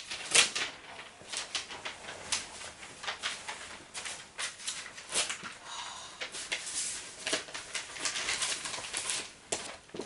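A large cloth sheet, with the crossing strips laid on it, being gathered up off a carpeted floor: rustling and crinkling in an irregular run of short scuffs and crackles.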